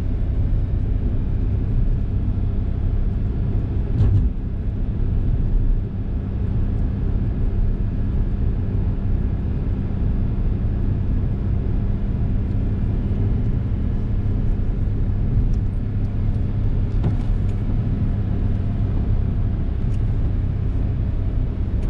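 Steady road and engine noise inside a Suzuki Hustler's cabin as it drives along: a low rumble with a constant hum, and a brief thump about four seconds in.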